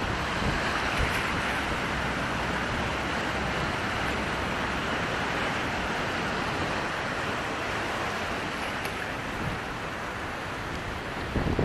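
Steady hiss of moving water, with no distinct splashes.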